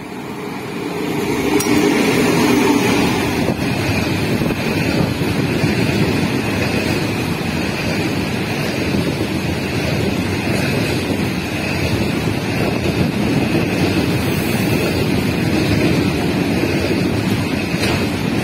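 Diesel-hauled container freight train running past close by. The locomotive comes up and passes in the first couple of seconds, getting louder, and then container wagons roll by with a steady rumble of wheels on rails.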